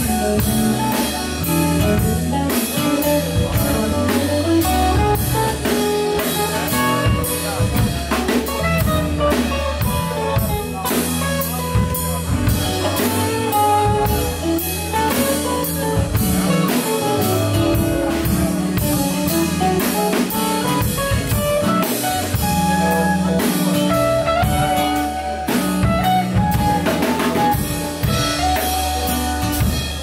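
Live band playing a rock jam: drum kit keeping a steady beat under guitars and a sustained bass line.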